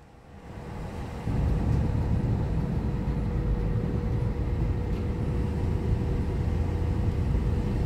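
Road and engine noise inside a moving car's cabin: a steady low rumble with a faint steady hum, swelling up from near quiet over the first second or so.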